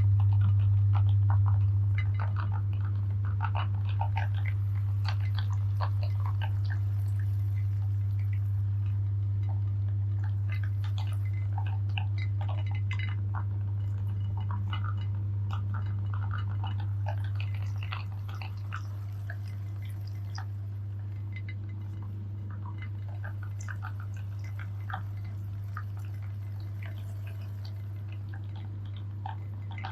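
Electric meat grinder running with a steady low motor hum while it crushes chocolate bars, with irregular crackling and crunching clicks as the pieces break. The hum drops in loudness about two seconds in and again about halfway through.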